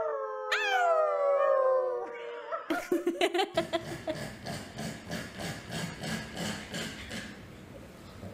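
A man and a dog howling together: long calls that slide down in pitch, a fresh howl starting high about half a second in, dying away after about two and a half seconds. After a cut, a quieter low rasping rumble pulses a few times a second.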